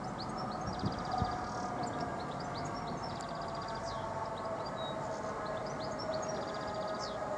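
Steady hum of a train, several held tones, with the pitch sagging slightly over the seconds. Over it a songbird repeats one short song three times, each phrase with a quick trill.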